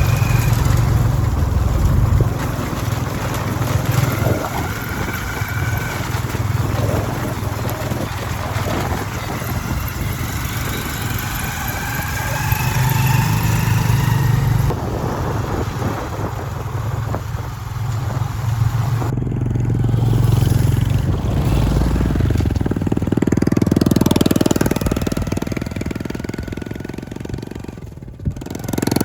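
Motorcycle engine running while riding, rising in pitch several times as it accelerates. The sound changes abruptly about 15 and 19 seconds in.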